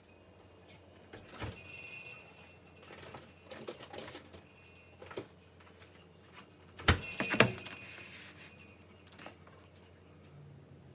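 Handling noises of a plastic-wrapped meat tray on a stone countertop: scattered clicks, plastic crackles and knocks, the loudest a pair of sharp knocks about seven seconds in as the tray is set down. A faint steady low hum lies underneath.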